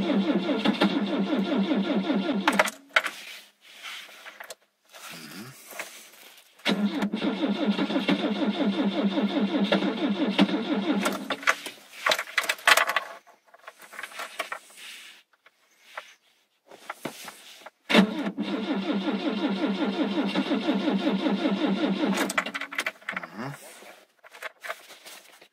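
Starter cranking the FSO Polonez Caro Plus 1.6 GSI's cold engine in three separate tries of about three to five seconds each, with short pauses and clicks between them. The engine does not catch: this is a hard cold start after the car has stood for days in frost.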